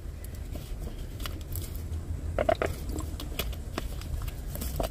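A person drinking from a plastic water bottle: soft swallows and faint crinkly ticks of the bottle over a steady low rumble.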